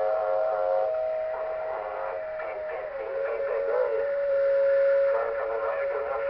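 Receiver audio from a Yaesu FT-1000D HF transceiver: a steady whistle-like tone with a second close tone just below it, over hiss and faint garbled signals. The pitch wavers a little as the receiver controls are worked.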